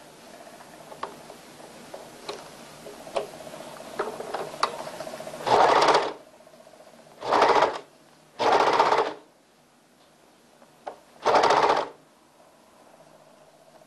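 Overlock (serger) sewing machine running in four short spurts of about half a second each, stitching over the edge of a trouser cuff seam. A few light clicks come first.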